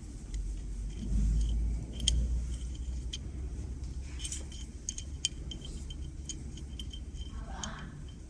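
Small metal connectors and fittings clinking and clicking as they are handled and fitted to a diesel injector, with a low handling bump about a second in.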